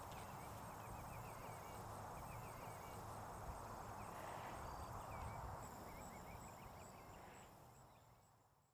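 Steady, quiet rushing noise with small birds chirping over it in short runs, all fading out over the last couple of seconds.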